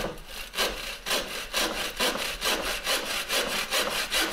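Freshly sharpened and set bow saw with cutter and raker teeth sawing through a log in a test cut, rasping on both push and pull strokes. The strokes quicken as the cut goes on.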